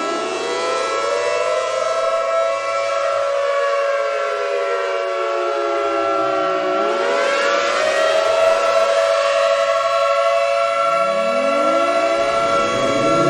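Federal Signal Thunderbolt and another outdoor warning siren sounding together: some tones hold steady while others fall in pitch until about halfway through, then wind back up, with fresh wind-ups near the end.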